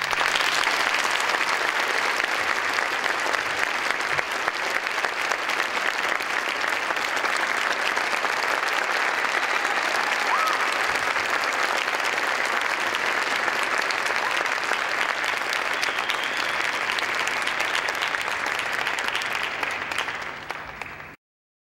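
Theatre audience applauding, a dense, steady clapping that eases slightly near the end and cuts off abruptly.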